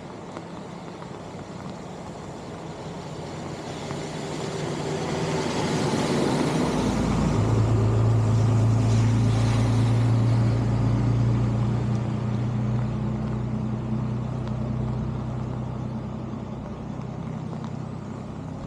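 A motor vehicle's engine passing by: it grows louder to a peak about halfway through, then fades away.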